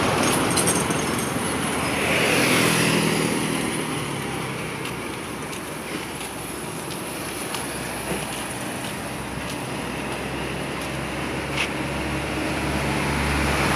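Road traffic passing on a street: a vehicle goes by about two seconds in, and a low engine rumble grows louder near the end as another vehicle approaches.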